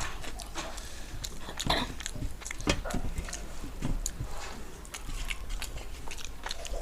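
A person chewing and eating masala-fried fish with rice, with irregular wet mouth clicks and small crackles.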